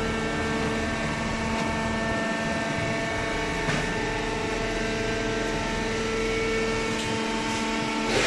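Carton baler machine running, a steady mechanical hum with several held tones over a noisy bed.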